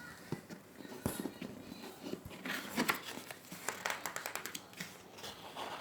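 Handling noise: a rapid run of small clicks and taps with rustling, densest around the middle.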